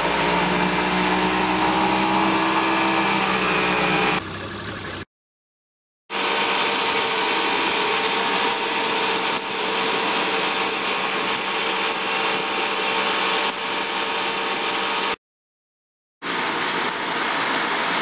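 Towing motorboat's engine running steadily at speed, with rushing wind and water noise. The sound cuts to dead silence twice, for about a second each time, once about five seconds in and again about fifteen seconds in.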